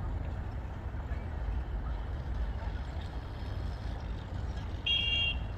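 Steady low outdoor rumble, with a brief high ringing tone about five seconds in.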